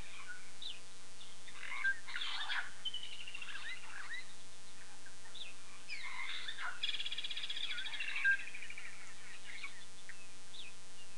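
Wild birds chirping and whistling, with several short calls and a rapid trill of repeated notes about seven seconds in, over a faint steady hum.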